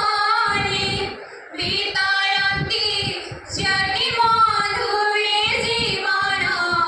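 Girls singing a melody together at a microphone in sustained, gliding phrases, with short breaths between phrases.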